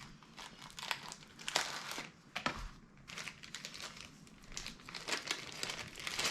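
Packaging crinkling and rustling in irregular bursts as it is handled and pulled open to unwrap a pair of sunglasses.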